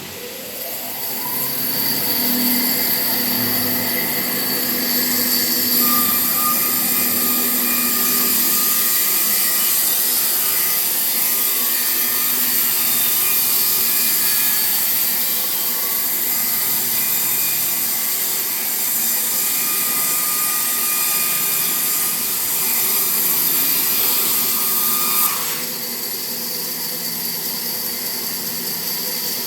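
Sawmill machine sawing wood: a rising whine as it spins up in the first second or so, then a loud, steady sawing noise that drops to a quieter running sound near the end.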